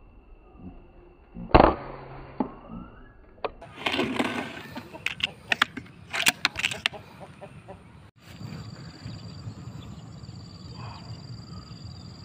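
A PCP air rifle fires once about a second and a half in, a sharp single shot. It is followed by a few seconds of irregular clatter and rustling. After a sudden break, a steady high-pitched insect chirring with two held tones takes over.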